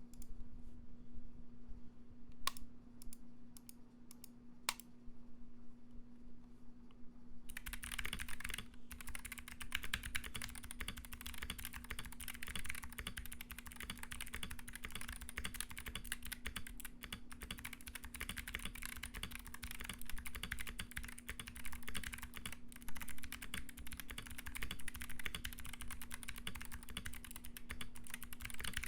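Royal Kludge RK68 mechanical keyboard with clicky Kailh Box White switches, foam- and tape-modded: a few single keystrokes, then fast continuous typing from about seven seconds in. A steady low hum sits underneath.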